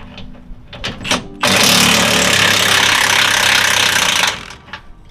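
Milwaukee Fuel cordless impact wrench hammering for about three seconds as it breaks loose a rear control arm bolt, after a few light clinks of the socket going onto the bolt.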